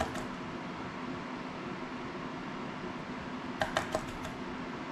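Steady fan-like room hum, broken about three and a half seconds in by a quick run of four or five small sharp clicks and taps from tools and parts being handled while soldering a small drone.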